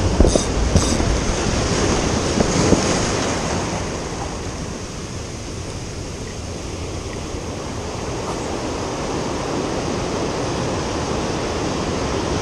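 Ocean surf breaking and washing over shoreline rocks, a continuous rushing that eases in the middle and builds again toward the end. A few sharp clicks in the first second.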